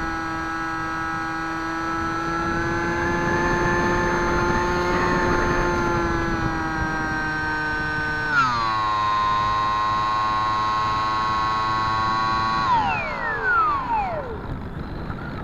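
Bixler RC foam plane's brushless electric motor and pusher propeller whining at steady throttle, heard from a camera on the airframe. About eight seconds in the pitch drops sharply to a lower steady whine as the throttle is cut back. Near the end the whine falls away to a stop, leaving wind rush as the plane glides.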